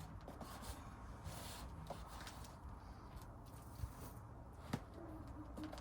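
Hands digging and scooping through wet soil in a potato grow bag: soft, irregular rustling and scraping, with one sharp tap about three-quarters of the way through.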